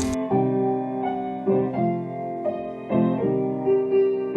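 Background piano music: soft, sustained notes following one another, with no speech.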